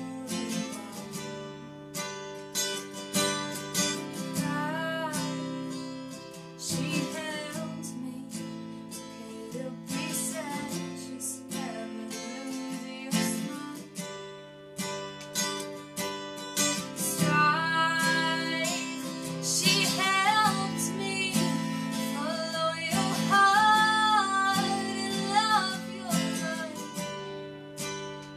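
Acoustic guitar with a capo, strummed in steady chords, with a young woman singing a slow ballad over it, her voice strongest in the second half.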